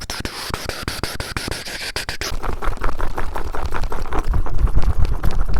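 Fast, aggressive tapping and scratching directly on the TASCAM recorder's microphones: a dense stream of quick clicks. A hiss runs under the first two seconds, then the taps turn into heavier, bassier thumps.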